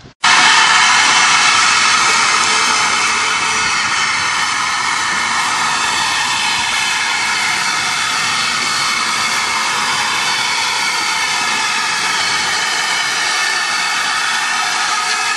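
GWR Manor class steam locomotive 'Foxcote Manor' blowing off steam at its safety valves while standing: a loud, steady hiss with faint whistling tones running through it and no chuffing rhythm, the sign of a boiler at full working pressure.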